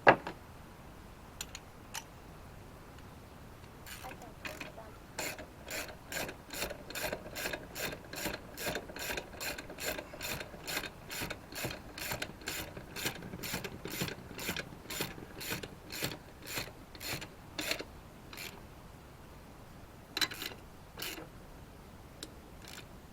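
Hand ratchet wrench turning a lug nut: a long run of even pawl clicks, about three a second, that stops about three-quarters through, with a few more clicks shortly after. The nuts are being run down snug so the wheel centres on the hub.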